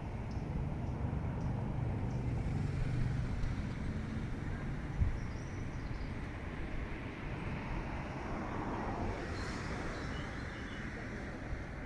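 Steady low rumble of distant city traffic, with a few faint bird chirps above it and a single short knock about five seconds in.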